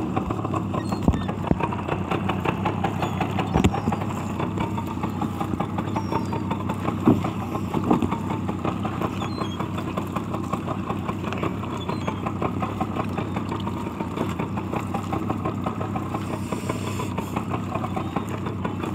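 Boat engine idling steadily, its note drifting slightly up and down, with a few knocks along the way.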